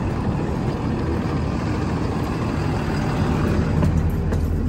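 Diesel school bus engine idling with a steady low hum, growing louder about three and a half seconds in, with a few light knocks near the end.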